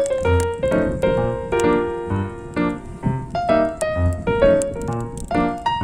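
Background music: a keyboard melody in quick notes over a steady low bass beat.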